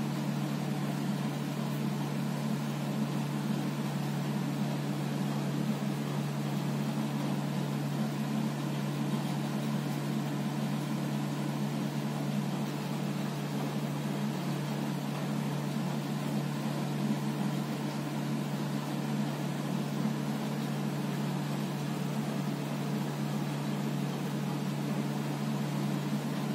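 A steady low hum with an even hiss above it, unchanging throughout, like a small motor or appliance running.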